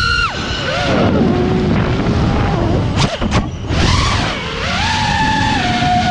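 6S FPV quadcopter's Brother Hobby R6 2207 1800kv brushless motors whining. The pitch drops sharply as the throttle is cut just after the start, and the sound dips briefly with a couple of sharp cracks about three seconds in. It then rises again and steps up and down between pitches with the throttle, over wind rumble on the onboard camera's microphone.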